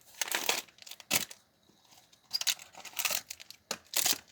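Small packaging being torn open and crinkled by hand, in short bursts with a pause about halfway through: a Yowie Gummies box and its wrapped contents being opened.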